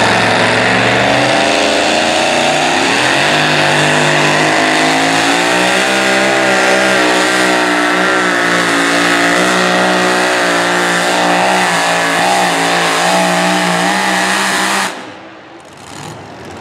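Supercharged engine of a super-modified two-wheel-drive pulling truck running at full throttle down the track. Its pitch climbs over the first few seconds, holds with some wavering, and cuts off suddenly near the end.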